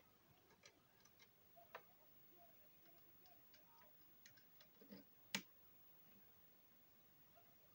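Near silence: faint room tone with scattered light clicks and ticks, the sharpest a single click about five seconds in.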